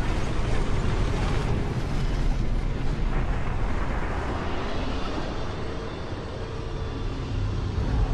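A dense, steady rumbling roar from the intro's produced sound effect, heavy in the low end.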